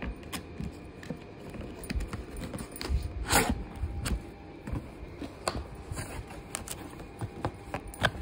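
A cardboard box being opened and handled by hand: scattered taps, clicks and scrapes of the flaps, with one louder rasp about three seconds in.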